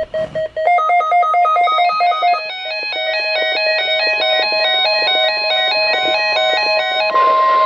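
Electronic music with a quick, evenly repeating pattern of notes. About seven seconds in, a steady, loud single tone starts over it: the NOAA Weather Radio 1050 Hz warning alarm tone that begins a weekly test.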